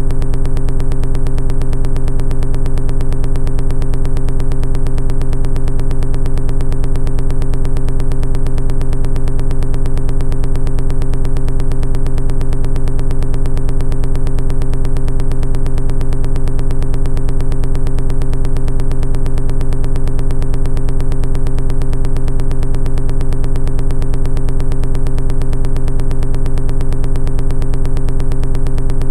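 A steady, unchanging low electronic drone: one buzzing synthesizer tone with its overtones, held without a break.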